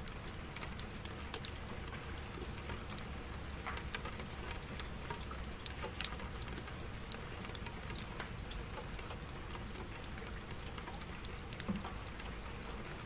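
Steady rain, with many individual drops tapping and a couple of louder drips, one about six seconds in and one near the end.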